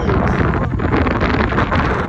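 Wind rushing over the microphone on a moving scooter, a loud, steady buffeting rumble mixed with road noise.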